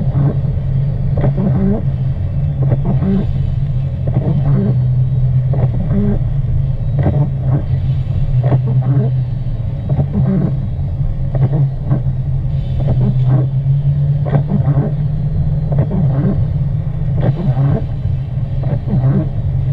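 Car driving: steady low engine and road rumble, with frequent irregular ticks over it.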